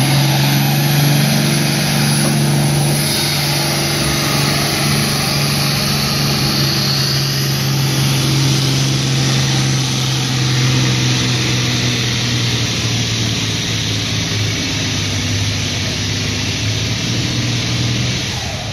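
Farm tractor's engine running hard under load as it pulls a weight-transfer sled down a dirt pulling track, a deep, steady drone at one even pitch that fades gradually as it draws away and drops off near the end.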